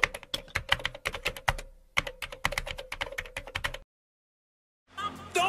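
Rapid, irregular clicks, several a second, over a faint steady hum, in two runs with a brief break about two seconds in; the clicking stops past halfway, and music starts near the end.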